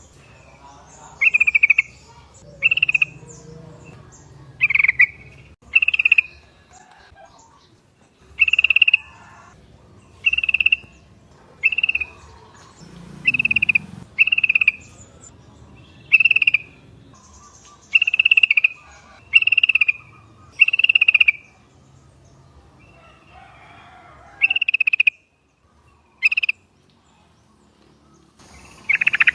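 Yellow-vented bulbuls calling: short, bright, bubbling notes repeated about once a second, with a gap of a few seconds near the end.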